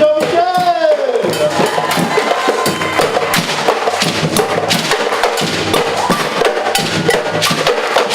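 Percussion group drumming a dense, fast, steady rhythm on drums and sharp wood-block-like strikes. A brief falling pitched call sounds about half a second in.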